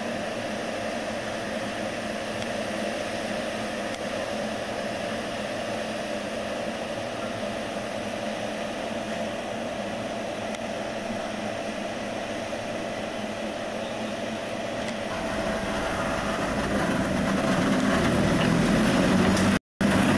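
Vintage Sydney 'Red Set' electric train: a steady mechanical hum while it stands, growing into a louder rumble over the last few seconds as the cars roll past close by. A brief dropout in the recording just before the end.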